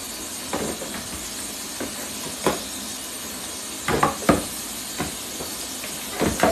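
Clear plastic steamer baskets being hand-washed in a sink of soapy water: irregular knocks and scrapes of the plastic being handled and wiped, over a steady background hiss.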